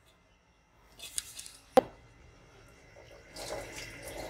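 Kitchenware clatters lightly, then gives one sharp clink just under two seconds in. Near the end comes a spell of noisy spilling as boiled chickpeas are tipped from a dish into chicken curry in the pot.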